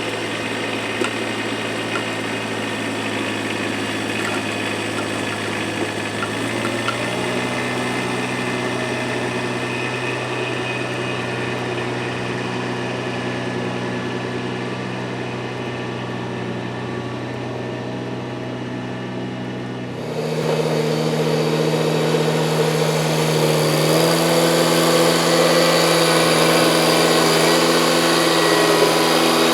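Kubota compact tractor's diesel engine running steadily; its pitch steps up about seven seconds in. About twenty seconds in it gets louder and a high whirring joins it, as of the 45-inch snowblower spinning up.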